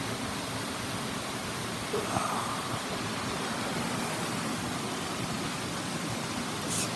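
Steady rushing of a clear mountain stream flowing. A short faint sound comes about two seconds in, and a brief high hiss near the end.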